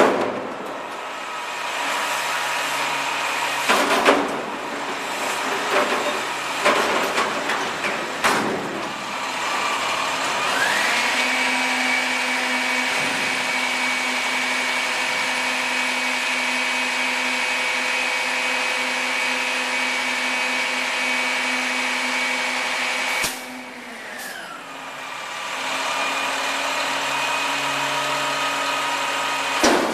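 Front-loader garbage truck emptying a dumpster: irregular clanks and bangs of the steel bin for several seconds. Then the engine and hydraulics rise into a steady high whine that holds for about twelve seconds, drops off suddenly, and rises again near the end.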